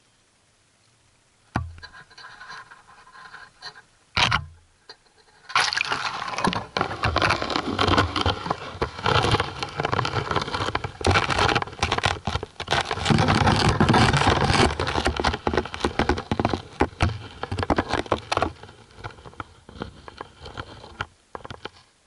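An underwater action camera being lowered through a hole in the ice: a knock and some scraping about a second and a half in, a second knock about four seconds in, then a long run of bubbling, sloshing and scraping noise around the camera in the water that thins out near the end.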